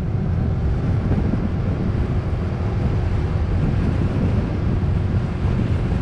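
Wind buffeting the microphone of a camera riding on a moving motorbike: a loud, steady rush heaviest in the low end, with a faint steady engine hum underneath.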